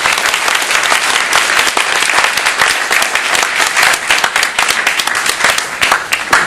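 An audience applauding, many hands clapping at once, starting to thin out near the end.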